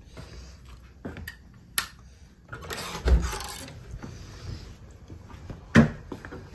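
Handling noises of someone moving things about: scattered clicks and knocks, a rustling scrape about three seconds in, and one sharp, loud knock near the end.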